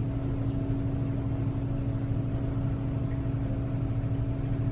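Steady low mechanical hum with constant droning tones and no change in pitch.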